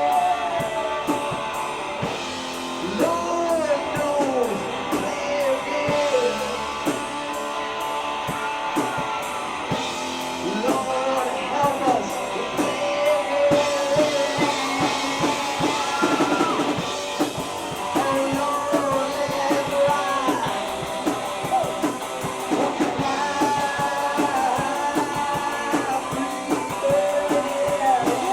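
Rock band playing an instrumental passage: electric guitar with bending, gliding notes over a steady drum kit and bass.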